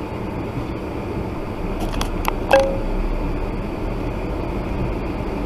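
Steady in-car noise of the engine and tyres on a wet road, the low rumble growing slightly stronger about halfway through. A few sharp clicks sound close together about two seconds in, the last with a brief ring.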